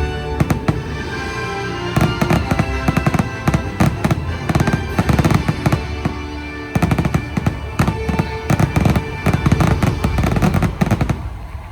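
A rapid barrage of fireworks bursts, loud over orchestral show music. The bursts come thickest from about two seconds in, ease off briefly around six seconds, then pick up again and die away near the end.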